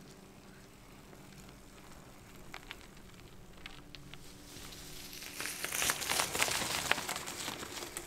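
Dry fallen leaves crunching and rustling, growing loud and dense about five seconds in. Before that there is only a faint low hum with a few light clicks.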